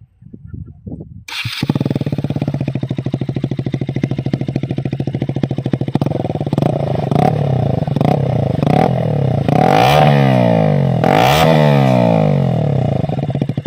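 KTM RC 125's single-cylinder four-stroke engine, fitted with a newly changed exhaust, starts up about a second in and idles with a fast, even beat. Several short throttle blips follow, then two longer revs near the end that rise and fall.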